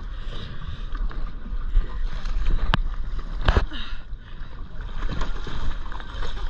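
Wind rumble and cloth rubbing over a chest-mounted camera as the wearer moves on a boat deck. Two sharp knocks come near the middle, the second the louder.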